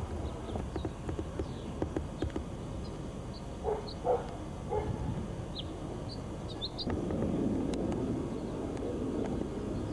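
Small birds chirping in short, scattered calls over a low rumble with light knocks, and a steady rushing noise that swells up about seven seconds in.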